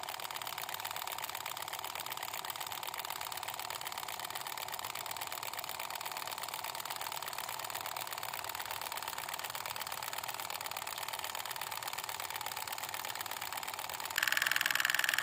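Small motor of a miniature model diesel water pump running steadily with a fast, even buzz while the pump pushes water out of its outlet pipe. Near the end the sound becomes abruptly louder.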